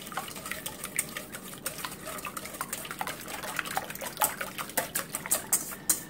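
Wire whisk beating eggs and heavy cream in a stainless steel bowl: quick, irregular clicking and wet swishing as the wires strike the metal, a little louder in the last couple of seconds.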